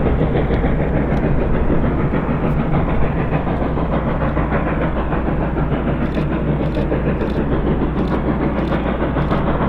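Reading & Northern 425 steam locomotive and its passenger train running, a loud, steady rumble.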